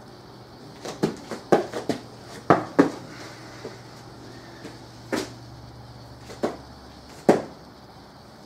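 Bare feet and hands thumping on rubber gym flooring as a man comes down out of a handstand, takes a few steps and kicks back up. A quick cluster of short thumps in the first three seconds is followed by a few single ones.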